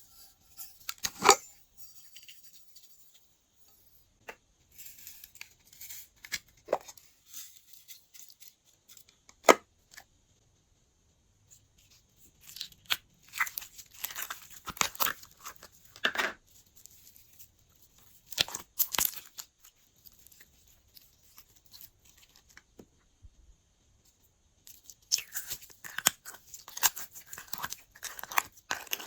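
Glossy slime being worked by hand: irregular sticky clicks, pops and crackles in clusters, with short quiet pauses between them.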